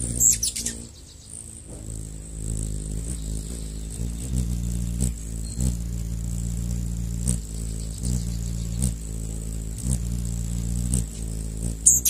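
Hummingbird wings humming in flight, a steady low buzz that swells in short pulses every second or so. A quick burst of high, falling chirps from the bird comes just after the start and again at the very end.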